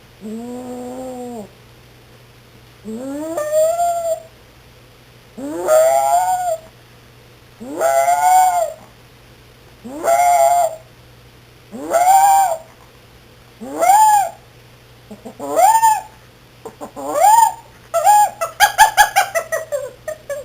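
A Chihuahua puppy howling in a repeated pattern. A level call comes first, then about eight drawn-out calls roughly every two seconds, each rising and then falling in pitch. The last call breaks into a quick stutter of short yips.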